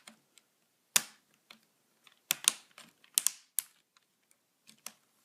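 Plastic parts of an HP Pavilion dm1 laptop's screen assembly being handled and snapped into place around the hinges: a handful of sharp, irregularly spaced plastic clicks.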